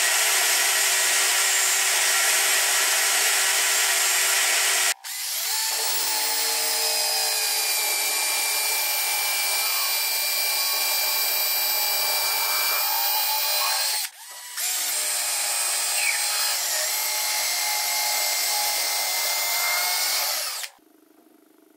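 An electric drill running while it bores holes into a clamped wooden block, in long steady stretches broken by abrupt cuts about five and fourteen seconds in. It stops suddenly near the end, leaving only faint room noise. Before the first cut, a power tool is already running steadily.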